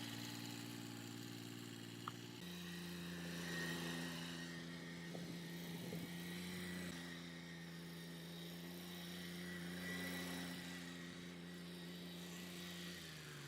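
Yanmar diesel tractor engine running steadily at a low hum, its note shifting abruptly twice early on and once near the end.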